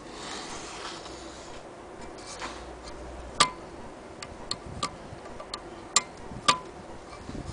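Irregular sharp clicks and taps from an antique Willcox & Gibbs sewing machine being handled at the needle and presser foot. The clicks come mostly in the second half, some ringing briefly, with a soft rustle near the start.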